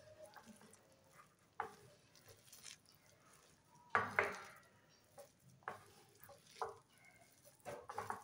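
A hand mixing gram flour into shredded cabbage in a bowl: quiet, soft rustling and scattered short scrapes of fingers against the bowl, loudest about four seconds in.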